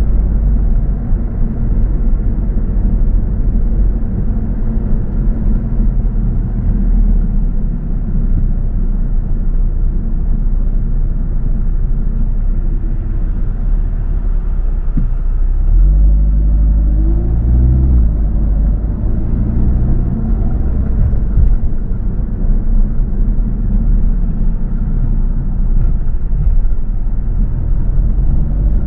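Car driving: a steady low rumble of road and engine noise. About halfway through, the engine note rises as the car accelerates.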